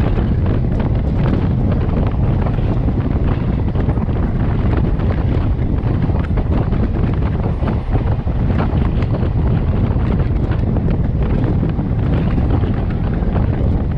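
Wind buffeting a microphone held out of a moving passenger train, over the train's steady running rumble on the rails. Loud and unbroken throughout.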